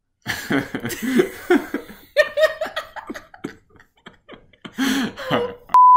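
A woman and a man laughing hard together in broken bursts of giggles and chuckles. Near the end comes a short, loud, steady beep.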